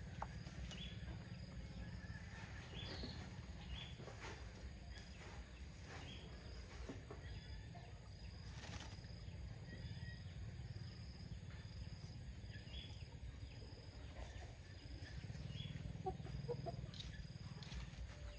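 Chickens giving short, high calls and clucks here and there over a steady low rumble.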